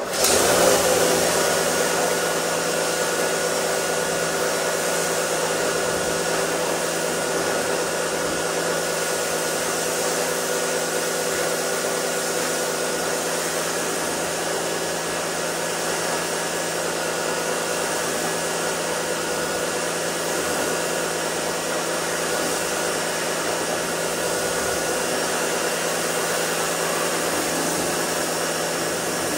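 Pressure washer running with a steady hum under the hiss of its water spray as a truck is rinsed. It cuts in abruptly and holds level.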